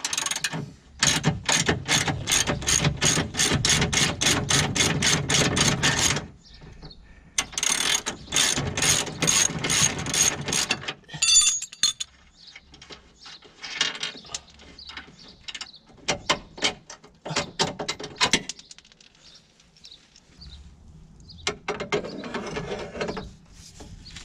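Hand socket ratchet clicking quickly as a bolt is wound on the car's front suspension, about five clicks a second. It goes in a long run, a pause, another long run, then shorter bursts with gaps between.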